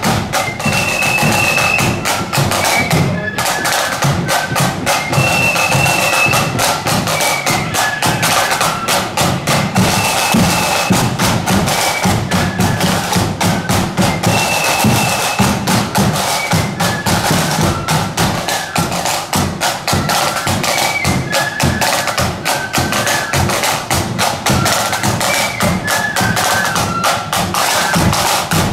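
Marching flute band playing a high-pitched melody over rapid snare drumming and bass drum beats, with a brief break in the drumming about three seconds in.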